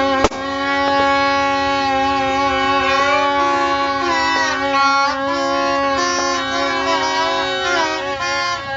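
Several horns blasting together in long, sustained, overlapping tones, with some pitches changing partway through. A sharp crack sounds a fraction of a second in.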